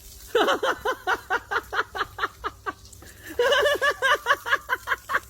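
A person laughing: two long runs of quick, evenly spaced bursts, with a short break about three seconds in.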